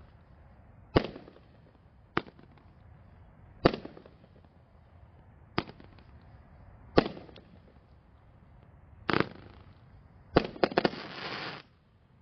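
Firehawk Homefront 500-gram fireworks cake firing: single sharp bangs every one to two seconds, then a quick run of bangs and a dense burst of dragon-egg crackling that stops suddenly near the end.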